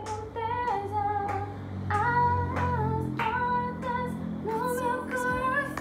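Pop song with a female lead vocal over a steady bass line, the singer holding and gliding between notes.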